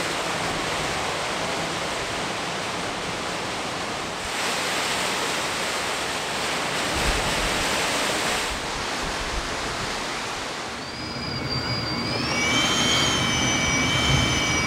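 Strong, gusty wind blowing, with a louder gust from about four seconds in until about eight. In the last few seconds a high whistling tone comes in, rising and then falling in pitch.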